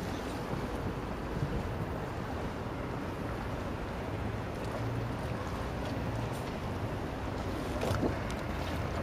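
Wind on the microphone over lapping sea water, with a steady low rumble underneath and a faint knock about eight seconds in.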